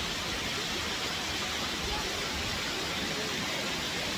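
Water pouring steadily over a concrete dam spillway and splashing into the pool below, an even rushing noise.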